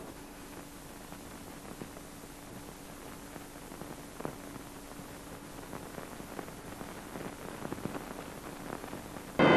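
Hiss and crackle of an old optical film soundtrack, with scattered faint clicks and a faint low steady hum. Near the end a loud siren-like wail with several pitches, slowly falling, cuts in abruptly.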